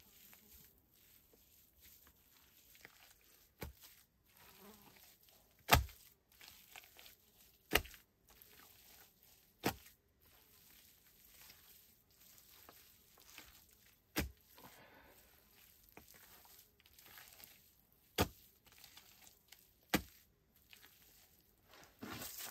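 Seven sharp knocks at uneven gaps of one to four seconds, the loudest about six seconds in, with faint scraping and rustling between them and a louder rustle near the end.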